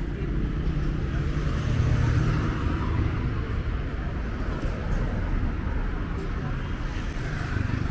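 Busy road traffic: a steady low rumble of vehicle engines and tyres, swelling a little about two seconds in as a vehicle passes close.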